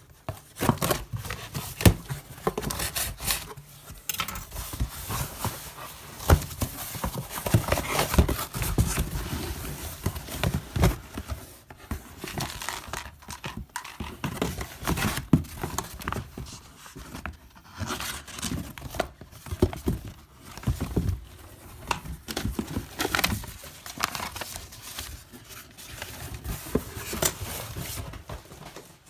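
Unpacking a cardboard shipping box by hand: irregular rustling, crinkling and tearing of cardboard and packing material, with scattered clicks and knocks as plastic supplement containers are handled and set down.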